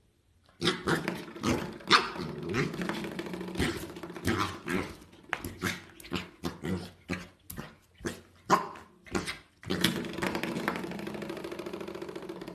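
Welsh corgi puppy growling and giving many short yaps, with a longer steady growl near the end.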